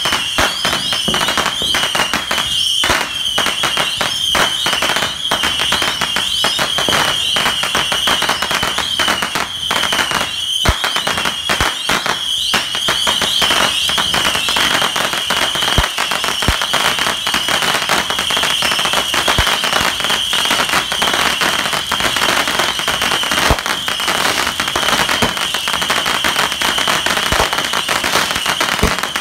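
Fireworks going off nonstop: dense, continuous crackling and popping, with a steady high-pitched tone running underneath.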